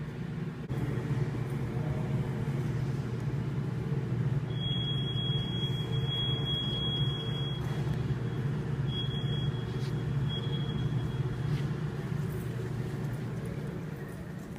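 Steady low mechanical rumble with a hum, growing louder suddenly just under a second in. A thin, high, steady tone sounds over it for about three seconds midway, then twice more briefly.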